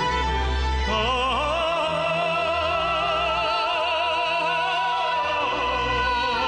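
A song playing: a singer holds long notes with wide vibrato over instrumental accompaniment with a steady low beat. The voice comes in with a rising phrase about a second in.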